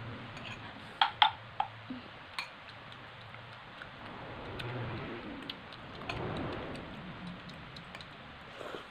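Eating sounds: a few sharp clicks of utensils knocking against a bowl about a second in, then scattered lighter ticks and soft chewing noises.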